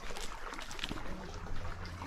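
Stream water trickling, with a low steady hum underneath in the second half.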